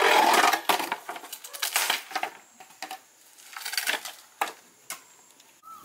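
Dry wooden logs and branches knocking and clattering against each other as they are picked up and stacked into a pile for a fire. The loudest clatter is right at the start, followed by several more bursts of knocks over the next few seconds.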